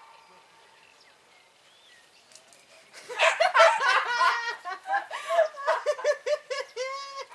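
Two women laughing together, in quick repeated bursts, starting about three seconds in.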